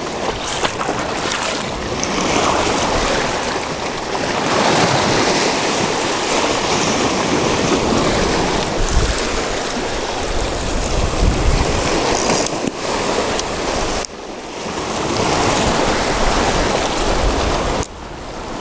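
Small waves washing over a lava-rock shore, a rushing noise that swells and fades, with wind rumbling on the microphone. The rush drops off suddenly about two-thirds of the way through and again near the end.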